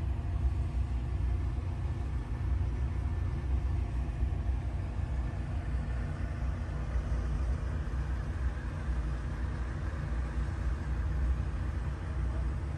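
Low, steady rumble of an idling diesel engine.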